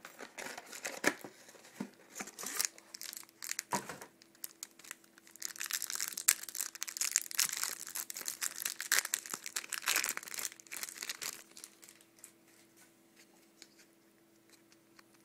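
Plastic wrapper being torn open and crumpled off a mini box of trading cards: crackling, rustling handling, densest in the middle, then softer card handling near the end.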